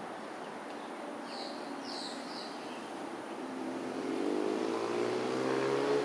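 A motor vehicle's engine approaching, rising slowly in pitch and getting louder from about halfway through, over a steady hum of distant traffic. A few short bird chirps come about a second and a half in.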